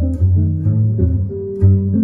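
Jazz duet of a hollow-body archtop electric guitar and a plucked upright double bass. The bass plays a line of low notes under the guitar's chords and melody.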